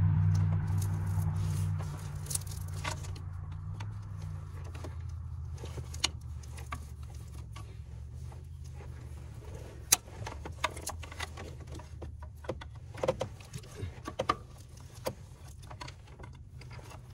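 Scattered small clicks and taps of a pry tool working the plastic retaining tabs of a fuel injector wiring-harness connector, one sharper click about ten seconds in and a short run of them near the end. A low rumble fades out over the first couple of seconds.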